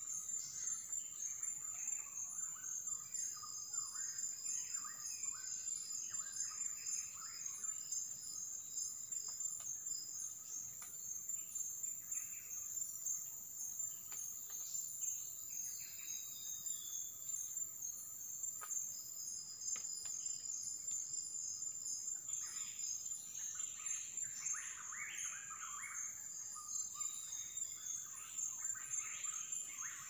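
Forest dawn chorus: a steady high-pitched insect drone with a second insect pulsing rapidly and evenly above it, and many short bird chirps and calls throughout, busiest at the start and again toward the end.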